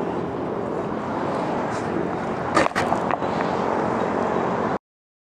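BMX bike's tyres rolling on smooth concrete as a steady hiss, with a few sharp clicks and rattles from the bike about two and a half to three seconds in. The sound cuts off abruptly near the end, leaving silence.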